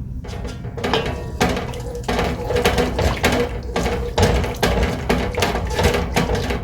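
A spoon stirring a thick ketchup-based barbecue sauce in a pan, scraping and knocking against the pan about two or three times a second.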